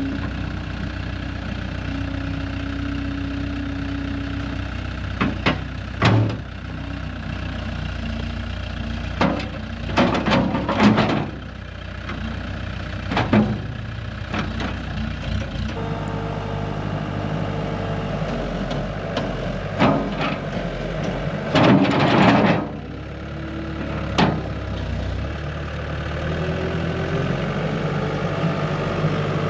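An engine idling steadily, with a handful of loud knocks and clanks at irregular moments.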